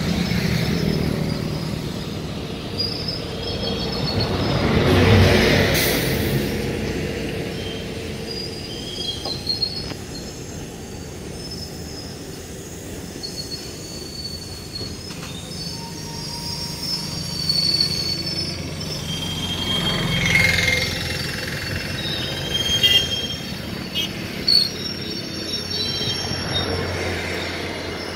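A slow-moving Indian Railways freight train of BCNA covered bogie wagons rolling past, its steel wheels squealing in scattered high-pitched tones over a low rumble. The rumble swells twice as the wagons go by, and there are a few sharp clanks.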